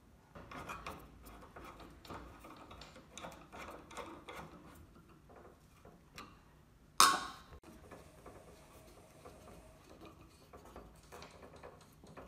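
Small metallic clicks and scrapes of a hex key turning socket-head screws to fasten an end mount plate onto an aluminium rail, with one sharp knock about seven seconds in.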